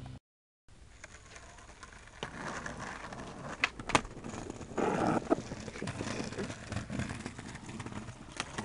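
Skateboard wheels rolling over brick paving, with several sharp clacks of the board striking the ground; the loudest clack comes about four seconds in.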